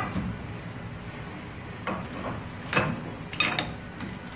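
A few light metal knocks and clinks as a brake caliper bracket is handled and fitted against a car's front spindle and steering arm. They fall in the second half, the last two close together.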